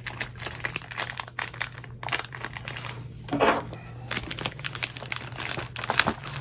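Plastic wrapping crinkling and rustling in a run of quick, irregular crackles as hands handle the packaging around a box.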